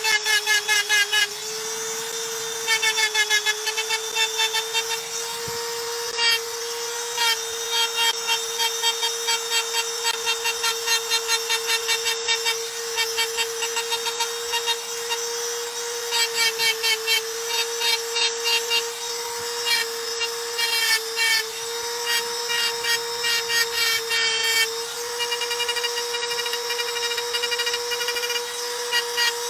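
Hand-held electric stone-engraving tool cutting lines into polished black granite: a steady motor whine, broken by runs of rapid, rhythmic rattling pulses as the bit bites into the stone.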